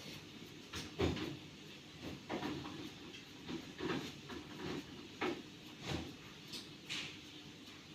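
A series of irregular short knocks and scuffs, about a dozen of them, the loudest about a second in.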